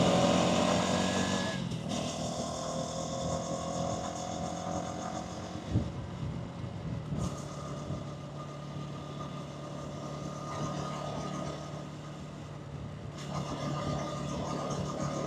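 Hansom Bike Venet 125cc motorcycle engine easing off, its sound dropping over the first couple of seconds, then running at a low steady idle. There is a single short knock about six seconds in.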